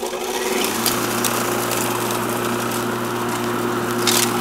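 1 hp Century electric motor of a home-built electric lawnmower, just switched on and reaching speed within the first second, then running steadily with a humming tone over the rush of the spinning blade. A few light ticks are heard over it.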